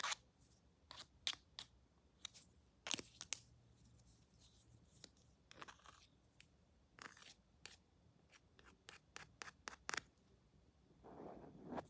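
Scissors snipping close to the microphone in irregular short, crisp cuts, with a softer rustle near the end.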